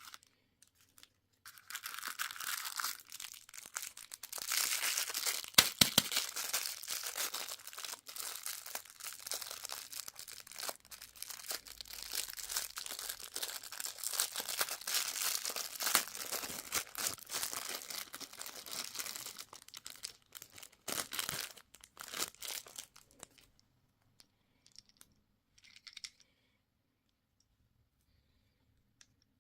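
Candy packaging being torn open and crinkled by hand: a long run of crackling and tearing with sharp snaps, starting a second or two in and stopping a few seconds before the end, then a couple of faint rustles.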